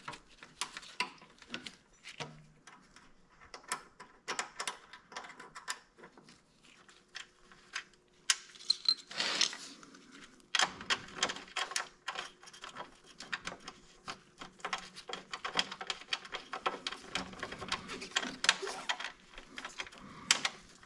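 Small clicks, taps and rustles of gloved hands fitting a plastic trim bracket and driving in its screw on a motorcycle front fork. The clicks are scattered at first and come in a dense run from about halfway.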